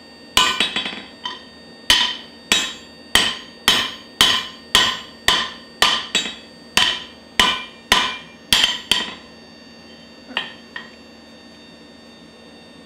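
Hand hammer striking glowing-hot steel on an anvil, about two blows a second, each with a short ring from the anvil, forging and rounding off the edges of the workpiece. The blows stop about nine seconds in, followed by two lighter taps.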